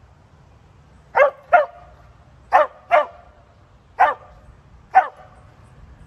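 Black-and-white herding dog barking: six short, sharp barks starting about a second in, the first four in two quick pairs, then two single barks about a second apart.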